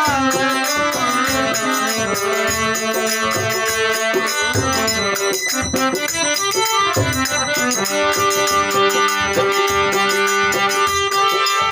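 Instrumental break in a folk devotional song: a held melody on a keyboard-type instrument over a steady beat of drum and rattle percussion.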